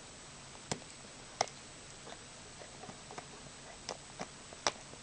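Dog chewing a hard bone: irregular sharp clicks and knocks of teeth on the bone, a few louder ones among softer ticks.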